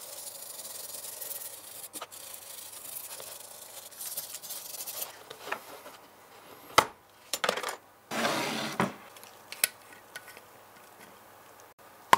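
Wire brush scrubbing paint residue off a diecast model car's metal body shell, a soft rasping for the first several seconds. Then a few sharp clicks and knocks as the body is handled in a plastic tray, with a short rasping burst about eight seconds in.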